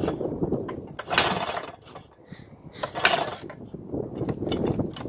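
1959 Nimbus inline-four motorcycle engine running unevenly at a low idle. It falters and nearly dies about two seconds in, then picks up again, with a few sharp mechanical clicks near the end.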